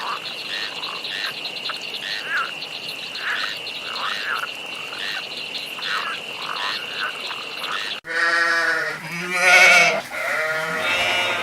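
Animal calls: a steady high-pitched trill with short calls repeating about once a second, then an abrupt cut about eight seconds in to louder, drawn-out calls.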